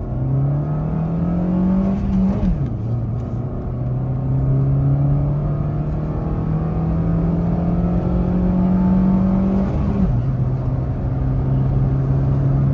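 Maruti Suzuki Swift with a manual gearbox, running on CNG, accelerating flat out. The engine note climbs quickly and drops sharply at an upshift about two seconds in. It then climbs slowly for several seconds and drops again at a second upshift about ten seconds in. The slow pull is the CNG car's sluggish acceleration: it took about 19 seconds to reach 100 km/h.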